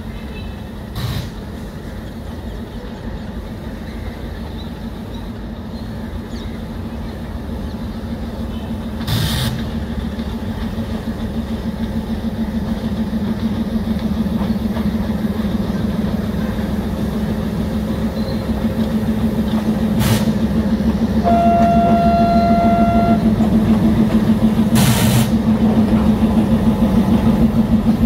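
Diesel locomotive approaching, its engine running with a steady low drone that grows louder as it comes closer. Just past the middle it gives one short single-note horn blast of about two seconds, and a few sharp knocks are heard along the way.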